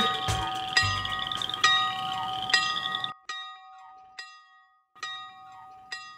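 Bell-like chime notes struck about once a second and left ringing, over a backing sound that cuts off suddenly about three seconds in, after which the chimes go on alone and quieter.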